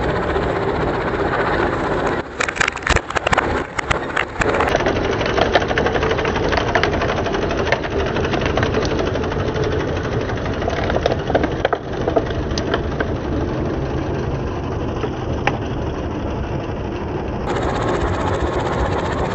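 Tractor engine running steadily, with sharp cracks and snaps as its rear tyre rolls over and crushes plastic toys, water beads and a china plate; the cracks cluster about two to four seconds in and come singly later.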